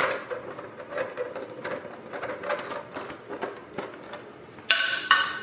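3D printer at work, its stepper motors humming and ticking as the print head moves, with a louder, higher whine of fast moves near the end.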